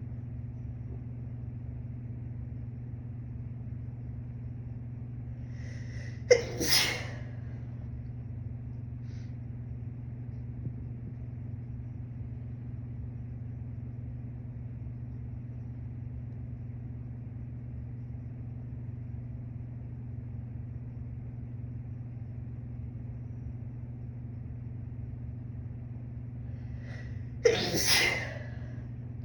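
A young woman sneezing twice, once about six seconds in and once near the end. Each sneeze is a sudden sharp burst followed straight away by a second, longer push of breath.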